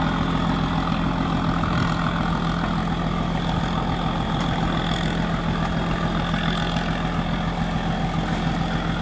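An engine running steadily at an even speed, a constant low hum that neither rises nor falls.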